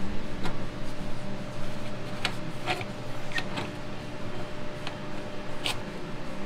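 Light metal clicks and clinks of a steel butt-joint exhaust clamp being slid and seated on the exhaust pipe, about six sharp clicks in all, the loudest near the end, over a steady low hum.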